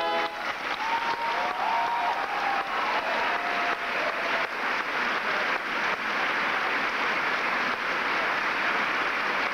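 The theatre orchestra's final chord cuts off right at the start, then a theatre audience applauds, steady and dense, with a few voices whooping in the first few seconds.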